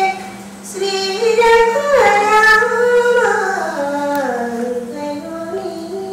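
A female voice singing a slow melody with long held notes that step down in pitch through the middle, over a steady low hum.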